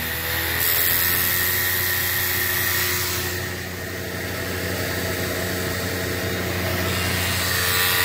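Used inverter-drive rotary compressor running at high speed on a VFD: a steady mechanical hum with a few fixed tones. The owner suspects that at this speed it is slugging on liquid refrigerant.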